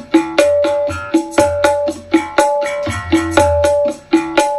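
Percussion-heavy music played back through a mid/high speaker cabinet with twin mid woofers and a horn, driven through a capacitor-only passive crossover. Sharp drum hits on a steady beat, several a second, with short pitched notes between them.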